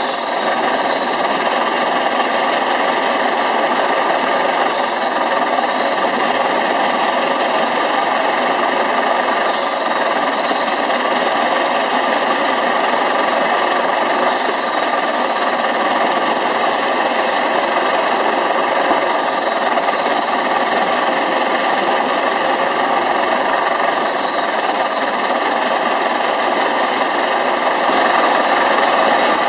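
Pence Bull Pup steam traction engine running steadily: a small steam shovel swing engine driving an early crossmount gas-tractor gear transmission, giving an even mechanical running clatter.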